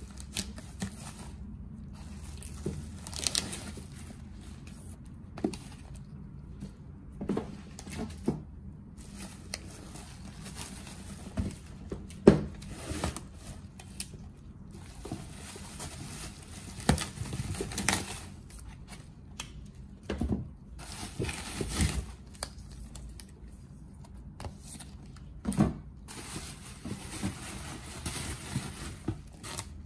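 Handling sounds of unpacking books: bubble wrap and plastic shrink-wrap crinkling and rustling under gloved hands, with irregular taps and knocks as books are lifted out of a cardboard box and set down.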